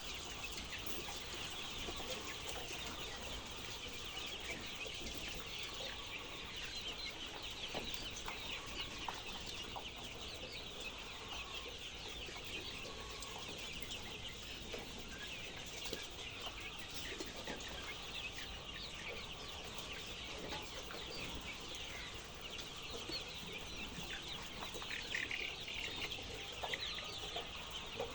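A large flock of chickens clucking and calling together, a dense steady chatter of many birds.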